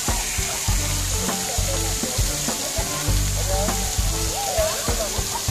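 Steady hiss of playground water jets spraying, with music running underneath: sustained low bass notes and a regular beat.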